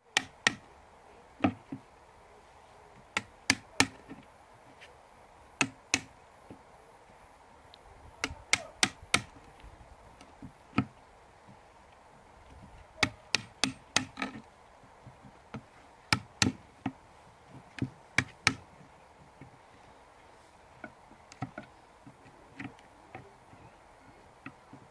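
A hand tool striking wood in irregular sharp knocks, some single and some in quick clusters of two or three, with several seconds between groups. The knocks are fainter near the end.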